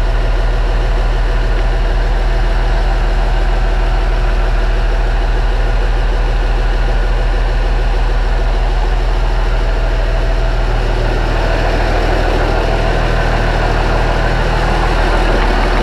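MTZ-2022.3 tractor's D-260.4S2 six-cylinder turbodiesel idling steadily, freshly rebuilt and running in on its first run after repair.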